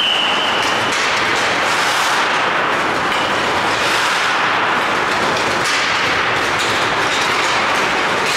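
Steady, loud noise of an indoor ice rink during a hockey practice, with skates on the ice. A short, high whistle blast comes right at the start.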